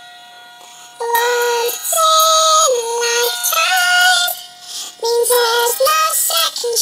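Young female voices singing with a robotic, pitch-corrected sound: each note held perfectly level and jumping sharply to the next. The singing starts about a second in and breaks off briefly near the middle.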